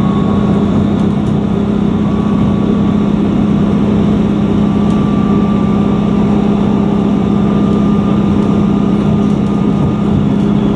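A train's engine running steadily: a loud, constant low hum with a fixed pitch.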